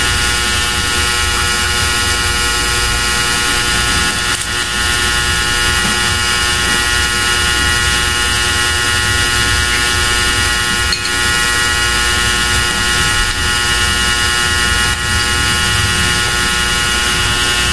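A steady electrical hum with a buzzing edge, unchanging in pitch and loudness throughout.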